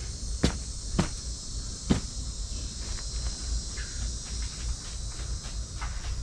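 Steady high-pitched chorus of insects such as crickets, with three sharp knocks in the first two seconds.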